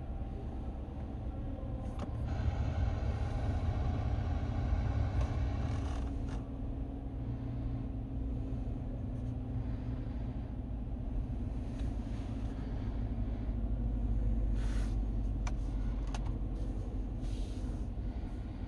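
Chevrolet Silverado High Country pickup idling, heard as a steady low rumble from inside the cabin, with a few light clicks.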